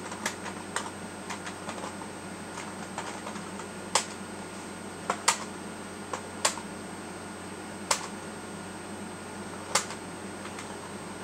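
Computer keyboard typing: a quick run of light keystrokes in the first few seconds, then single sharper key presses every second or two. A steady hum with a faint high whine runs underneath.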